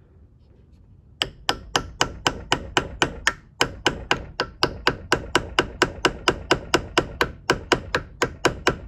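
Rapid hammer taps on a pointed steel punch set against a broken, soft thumb screw, driving the stub round to back it out of its threaded hole. The strikes start about a second in and come about three to four a second, each with a short metallic ring, with a brief pause partway through.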